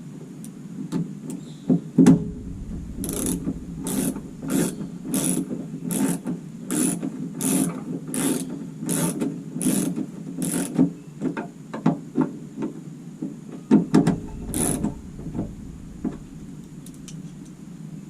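Hand ratchet tightening the fasteners of a minivan's tail light assembly: about a dozen ratcheting strokes, roughly one every two-thirds of a second, then a pause and one more stroke. A few dull knocks of handling come in between.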